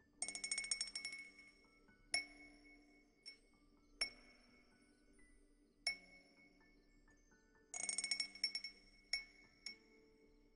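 Wind-chime cup played as an ASMR trigger: small high-pitched chimes clinking in a quick run about a second long, then single ringing strikes every second or two, another quick run of clinks near eight seconds, and two more strikes after it.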